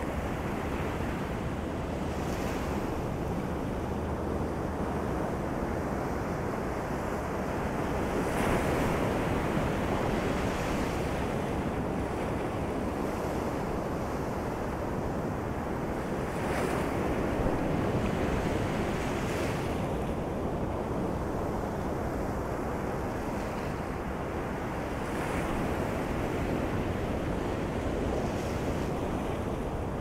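Ocean surf rolling onto a sandy beach: a steady rush of water that swells three times as waves break, roughly eight seconds apart.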